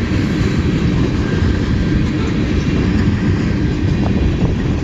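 Cars of a long mixed-freight train rolling past close by, a steady loud noise of wheels on rail with a couple of faint ticks near the end.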